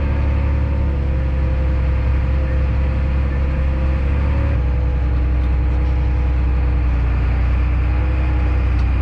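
Heavy farm machine's engine running steadily under load, a constant low hum with steady overtones; the hum shifts slightly in pitch about halfway through.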